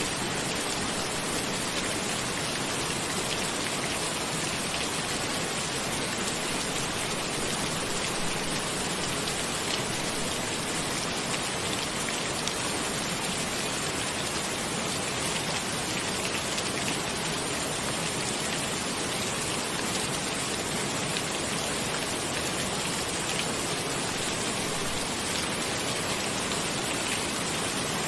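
Steady rain falling: an even, unbroken hiss with fine drop ticks scattered through it.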